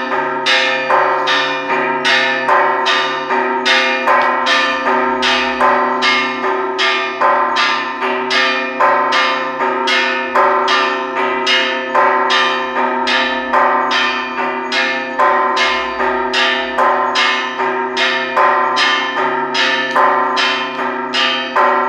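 Several church bells of different pitch rung in a fast, steady repeating pattern, about two strikes a second, their tones ringing on and overlapping.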